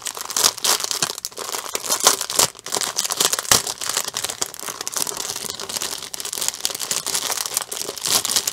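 Clear plastic bag of diamond-painting drill packets crinkling continuously as it is handled, with many sharp crackles.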